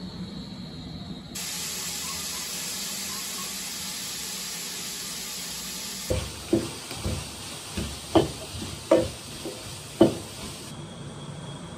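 A steady hiss for several seconds, then a wooden spoon knocking and scraping against a metal pot during stirring: about eight sharp, ringing knocks over some four seconds, the loudest near the end.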